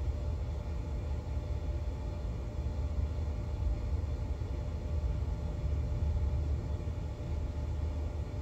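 Steady low rumble with a faint even hum from a superyacht's onboard machinery while she lies nearly alongside, her main engines already stopped.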